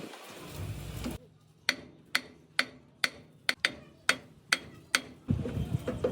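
A series of about ten sharp, evenly spaced metallic ticks, roughly two a second, starting about a second in and stopping near the end, with other workshop noise returning afterwards.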